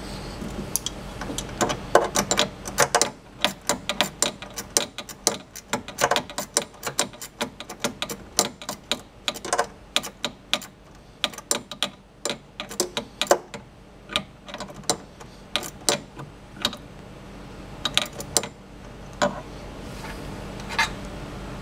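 Hand ratchet wrench clicking in short irregular runs, several clicks a second, as a bolt is tightened.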